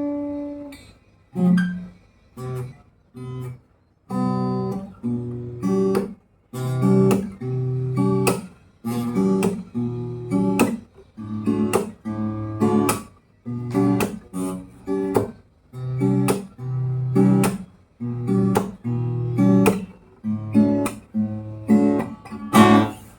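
Yamaha FSX80C acoustic guitar being strummed: a chord rings out and dies away, then come a few short chords and a long run of strummed chords, with brief stops between them.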